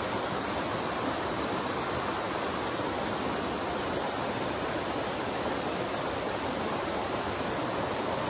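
Small mountain-stream cascade: water pouring over rock ledges into a shallow pool, a steady rush of falling water.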